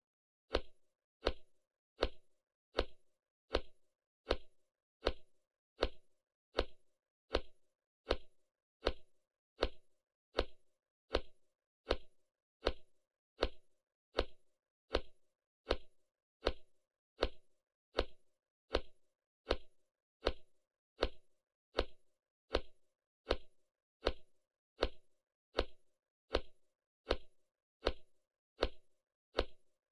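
Anime-style walking footsteps sound effect: crisp, evenly spaced steps at an unchanging pace, each one a short sharp tap with a brief ring after it.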